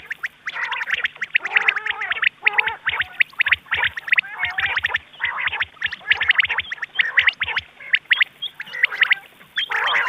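Rain quail calling over and over in quick, sharp clicking notes, several calls overlapping into a dense chatter, as played from a lure recording used to draw quail. There is a brief lull near the end, and a faint low hum runs beneath.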